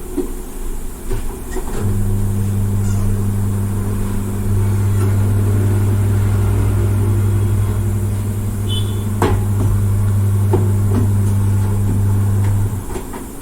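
A machine motor in a tyre shop hums steadily at one low pitch, starting about two seconds in and cutting off near the end. A few sharp clicks and knocks of tools sound over it.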